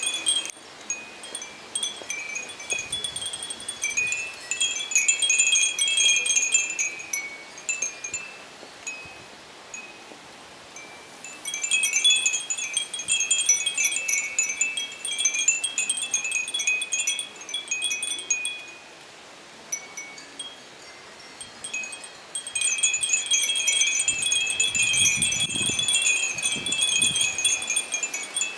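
Japanese wind chimes (fūrin) tinkling in the breeze, several chimes ringing together at a few bright pitches. They come in three spells of a few seconds each, quieter between gusts.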